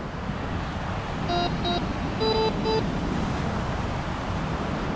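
White's MX7 metal detector giving short target beeps: two about a second in, then three slightly higher ones just after. Under them runs a steady rushing background.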